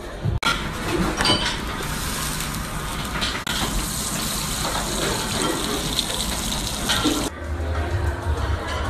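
Meat sizzling in bubbling fat in a hot pan, a loud steady hiss. It starts abruptly about half a second in and cuts off about a second and a half before the end, with background music on either side.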